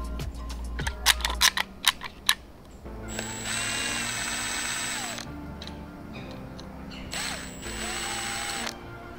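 Cordless drill with a socket spinning a bolt into a roof-rack tower bracket, in two runs of about two seconds and a second and a half. Before it comes a string of sharp clicks and taps. Background music underneath.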